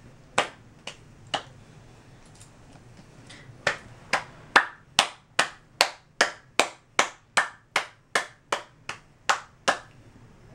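Patty-cake hand claps: a woman clapping her hands and patting palms with a black-capped capuchin monkey. Three sharp claps come near the start, then after a short pause a steady run of about sixteen claps, roughly two and a half a second, which stops near the end.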